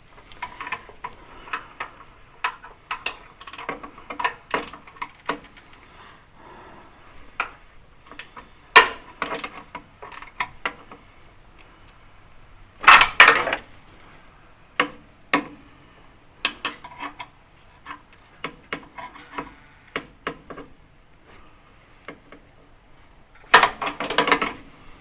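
Metal hand tools (sockets and spanners) clicking and clinking irregularly while nuts are being undone, with two louder rattles of metal, one about halfway through and one near the end.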